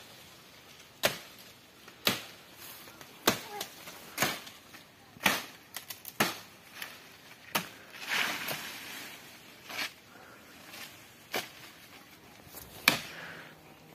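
A series of sharp knocks, about one a second and unevenly spaced, with softer clicks between them.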